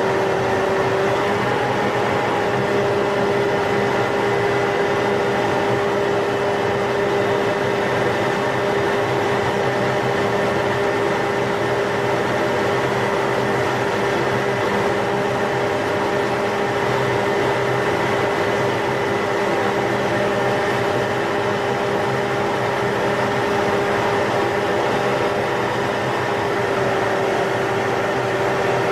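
Steady cockpit noise of the Boeing T-X jet trainer in flight: a constant whine over rushing air. The lowest whining tone rises a touch about a second and a half in.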